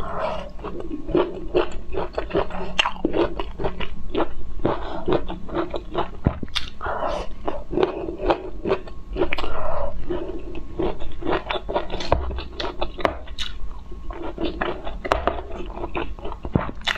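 Close-miked chewing of broccoli, with many crisp crunches and mouth sounds in an irregular run.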